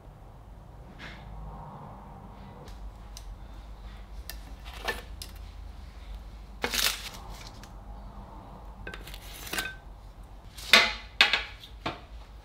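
Ceramic plates and cutlery clinking and knocking on a kitchen counter: a string of separate light knocks and clatters, the loudest near the end.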